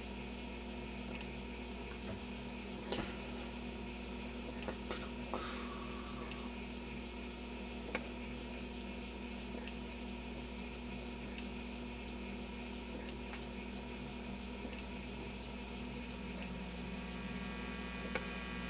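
GE 212 radio's speaker giving a steady mains hum over hiss and static, with a few faint clicks, while no station comes through clearly; the hum's tone shifts slightly near the end.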